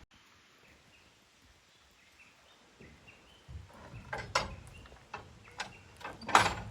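Quiet at first, then from about three and a half seconds in a run of sharp knocks and clicks, the loudest near the end.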